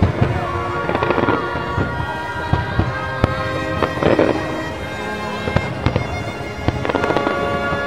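Fireworks going off in an irregular series of bangs and crackles, with music playing under them.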